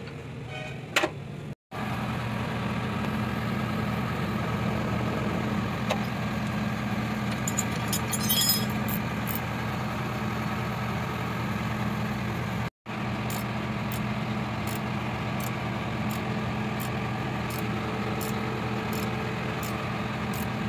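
An engine idling steadily. Metal clinks of a spanner on the belt tensioner pulley come about eight seconds in, and light regular ticks, a little under two a second, run through the second half.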